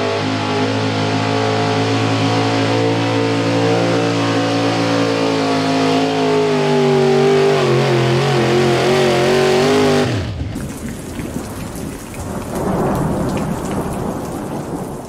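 Small-block V8 of a 4x4 pulling truck running hard under load, its pitch wavering and sagging as it pulls. The engine cuts off abruptly about ten seconds in, and a rumbling hiss of noise follows with a swell near the end.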